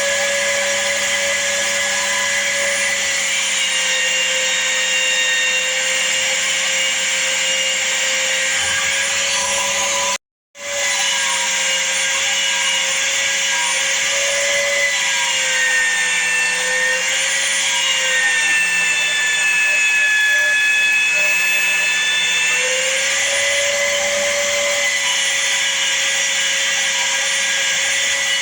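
Electric sander running steadily with a whine, its pitch sagging a little at times as the red oak knife handle is pressed against it to round it off. The sound drops out for a split second about ten seconds in.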